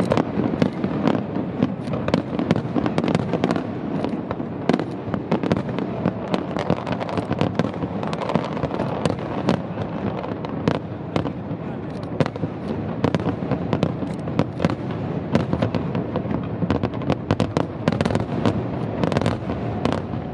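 Aerial fireworks display: many shell bursts a second, bangs and crackles overlapping one another over a continuous rumble.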